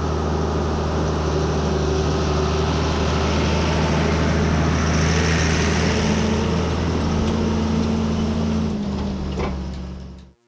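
Heavy farm machinery engine running steadily under load, with a wide mechanical noise over it, cutting off abruptly just before the end.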